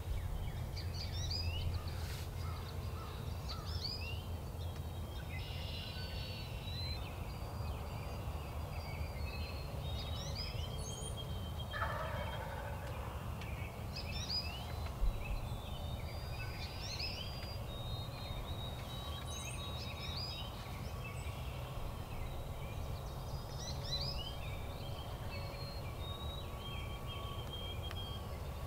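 A wild turkey gobbler gobbles once about twelve seconds in, a rattling call falling in pitch over about a second, over a steady background of small songbirds chirping. A dull low thump comes a few seconds after the gobble.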